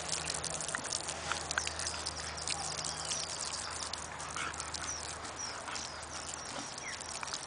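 Garden hose water spraying with a steady hiss onto a Dogo Argentino rolling on its back in dry grass, with scattered small rustles and crackles from its body on the grass.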